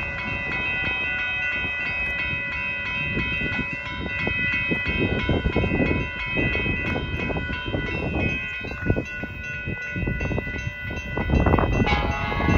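Railroad grade-crossing warning bell ringing steadily as the crossing activates and the gate arm comes down for an approaching train, over irregular low rumbling. A louder burst comes near the end.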